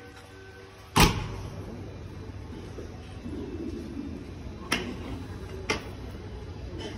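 Low steady rumble of a train standing at a station platform, with one loud sharp knock about a second in and two lighter clicks about a second apart near the end.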